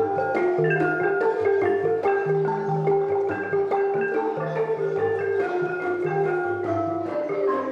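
Xylophone-led music: fast runs of struck notes over low, repeating notes, accompanying classical Khmer dance.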